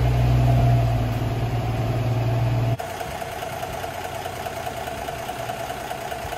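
1954 Ford's engine idling steadily after a cold start. About three seconds in, the sound drops suddenly to a quieter, thinner steady running.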